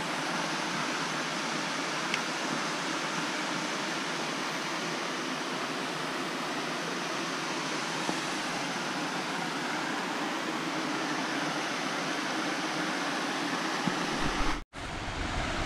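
Steady, even rushing of a woodland waterfall and brook cascading over rock. Near the end a low rumble comes in, and the sound cuts out for an instant.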